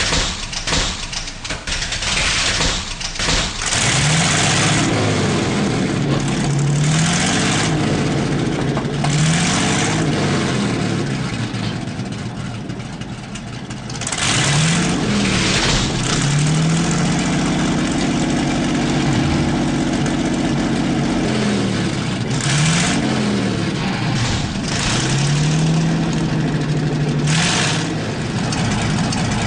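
Simulated tank engine from a custom Beier sound pack in a Heng Long 1/16 RC Jagdpanther, revving up and settling back again and again. Short bursts of hiss come every few seconds.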